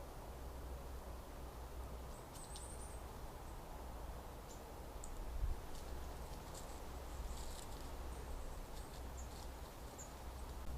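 Outdoor ambience under a steady low rumble, with faint, short, high-pitched bird chirps and ticks scattered through it, a small cluster of them about two seconds in.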